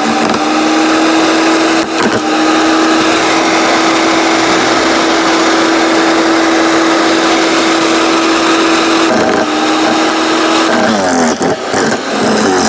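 15-amp electric wood chipper-shredder running and chewing through a thicker branch: a steady motor whine under loud grinding, with a few sharp cracks of wood. Near the end the whine drops in pitch and wavers as the motor bogs under the load.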